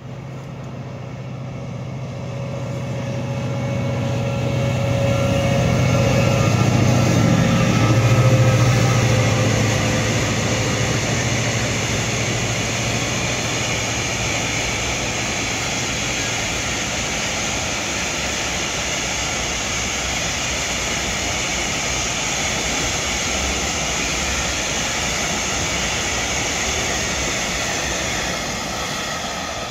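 Freight train passing: the locomotive's low drone builds and peaks about eight seconds in as it goes by, then the steady rolling rumble and hiss of a long rake of covered hopper wagons on the rails.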